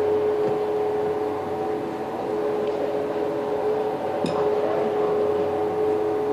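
A crane running steadily while it holds a prefabricated wall panel: a constant engine hum with a steady whine on top. A short knock about four seconds in.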